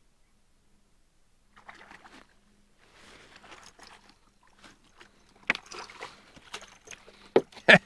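Water sloshing and splashing against a kayak, in soft patches at first, then a quick run of sharp splashes and knocks near the end.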